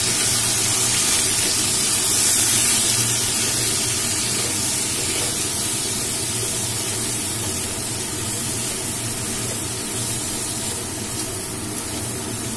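Mixed vegetables frying in hot mustard oil in a kadai as they are stirred: a steady sizzling hiss that slowly dies down.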